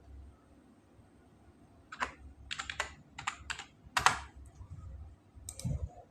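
Computer keyboard being typed on: an uneven run of about ten sharp keystrokes starting about two seconds in, with a low thud near the end.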